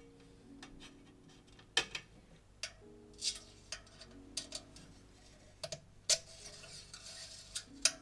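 Thin steel bicycle spokes clicking and ticking against each other and against the hub flange as they are threaded through a hub during wheel lacing: a dozen or so irregular sharp ticks, with a short scraping rustle after about six seconds.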